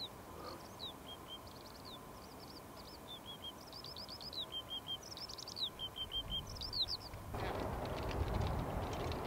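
A small songbird sings a run of varied chirps, short trills and quick series of repeated down-slurred notes. About seven seconds in, the song stops and a louder, steady rushing noise takes over.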